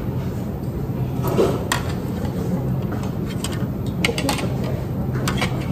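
Spoons and plates clinking during a meal: a dozen or so sharp, short clinks, some in quick clusters, over a steady low hum of room noise.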